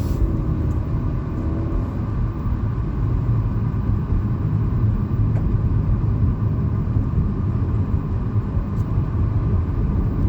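Steady low rumble of car engine and road noise heard inside the cabin while driving.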